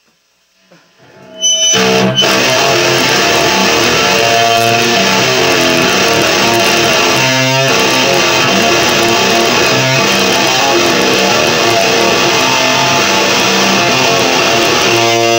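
Live rock band starting to play loud about a second and a half in: electric guitar strummed hard over drums and cymbals.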